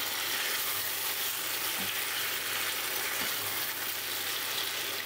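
Sliced pointed gourd (parwal) and potato frying in oily spiced masala in a non-stick pan, a steady sizzle, while a silicone spatula stirs through them.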